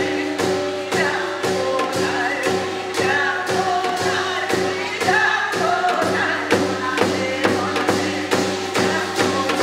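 Korean traditional ritual music: singing over a steady percussion beat of about two strokes a second, with held tones underneath.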